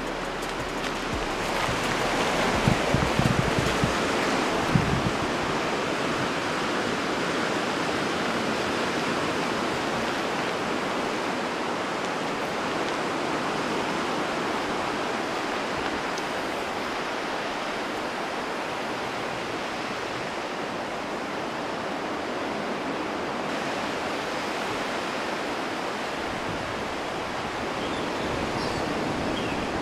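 Steady wash of ocean surf, with a few low thumps between about two and five seconds in.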